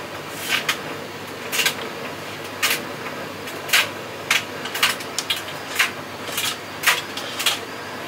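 Hoover NDEH 10A2TSBE-17 heat-pump tumble dryer drum turning with a steady hum. Over it come irregular sharp clicks, about one or two a second, from buttons on the clothes knocking against the drum.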